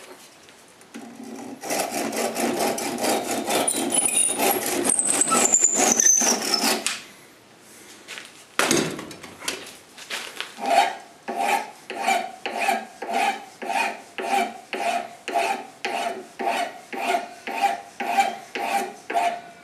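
Hand file scraping back and forth: a quick run of rasping strokes for about five seconds, with a high squeal that falls in pitch, then after a short pause a steady series of about two file strokes a second.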